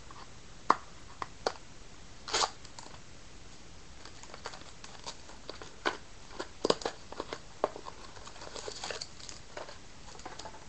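Hands opening and handling a pack of trading cards: scattered short crinkles and clicks of the wrapper and cards, with a longer rustle about two and a half seconds in and a run of crinkling near the end.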